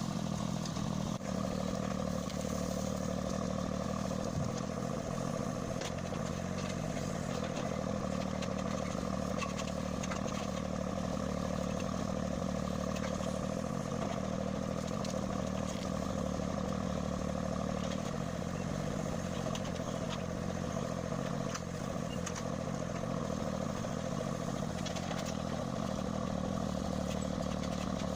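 Engine of a forestry machine running steadily at an even speed, with light clattering and knocking from the machine.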